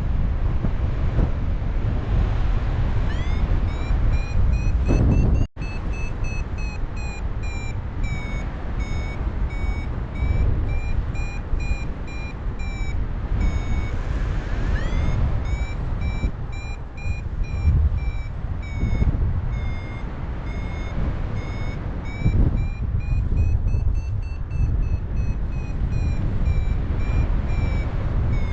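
Paraglider's variometer beeping in a steady run of short high beeps, about one and a half a second, the sound it makes while the glider climbs in lift, over wind rushing on the microphone.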